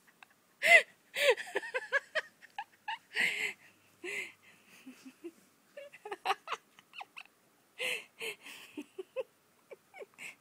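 A woman laughing in repeated short, breathy bursts, on and off, the loudest about a second in.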